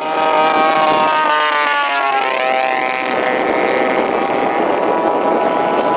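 Engines of giant-scale radio-controlled warbird model airplanes in flight, a loud steady drone with several pitches at once; about two seconds in the pitch drops as a plane flies past.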